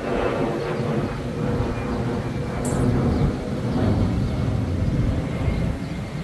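Steady, fluctuating low rumble of outdoor noise, with a brief high hiss a little under halfway through.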